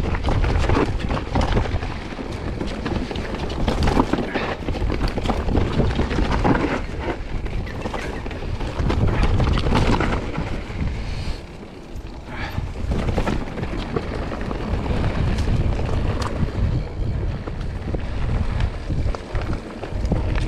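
Wind buffeting the microphone of a camera on a mountain bike riding downhill, over the rumble of tyres on a rough trail and frequent rattling knocks from the bike.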